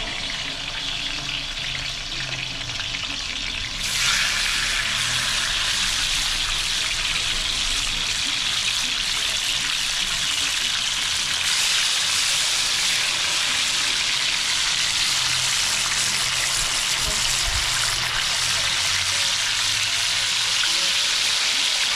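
Sierra fish fillets frying in hot oil in a skillet over a wood fire: a steady sizzle that grows louder about four seconds in.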